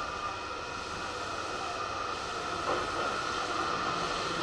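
Meitetsu electric train pulling in beside the platform: a steady running noise with a steady high tone over it, growing a little louder toward the end.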